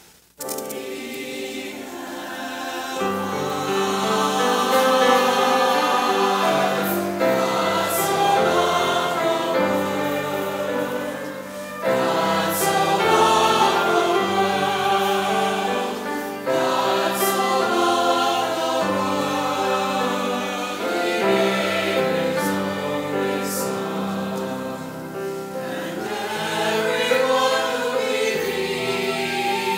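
A church choir singing, with low sustained accompanying notes coming in about three seconds in.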